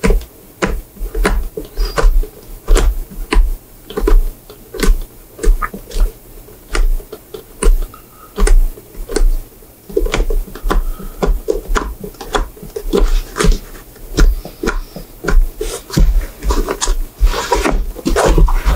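Hand tools picking and cutting out the welt stitches of a Goodyear-welted shoe: an irregular run of sharp clicks and snaps, a few a second, with dull knocks of the shoe and tools on the bench.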